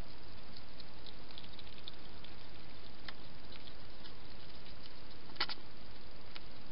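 Scattered small clicks of a hedgehog eating at a feeding bowl, a sharper cluster about five and a half seconds in, over a steady microphone hiss.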